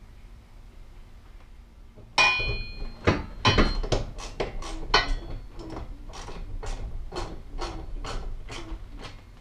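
A metal helmet hanger knocked against the trailer's wall panel while it is mounted: a sudden clank with a short ringing about two seconds in, a few heavy knocks, then a steady run of sharp knocks about two a second.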